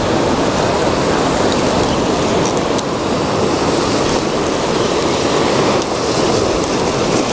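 Surf washing against shoreline rocks: a loud, steady rush of waves with no break.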